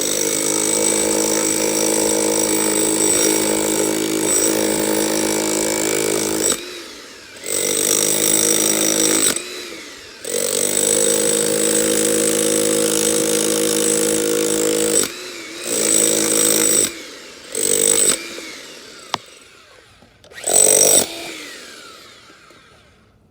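Jackhammer hammering in bursts with a steady whine: a long run of about six seconds, then several shorter runs with brief pauses between, the last about two-thirds of the way through, after which it dies away.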